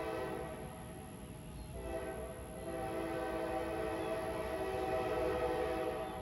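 Locomotive air horn sounding a chord of several notes: one blast trails off just after the start, and another begins about two seconds in and is held to the end with a short dip near its start.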